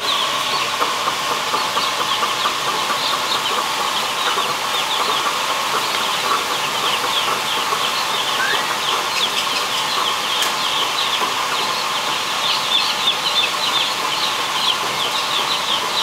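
A large flock of day-old chicks peeping continuously: a dense chatter of short, high, falling cheeps, over a steady hum.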